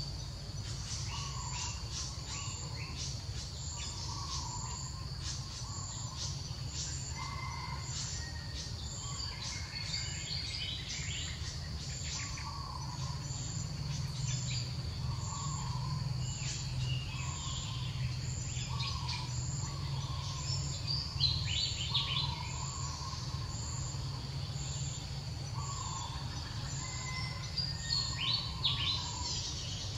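Forest ambience. A steady insect drone carries a short high pulse about once a second, and a low call repeats every second or two. Flurries of bird chirps come about a third of the way in, again about two-thirds in, and near the end, over a steady low hum.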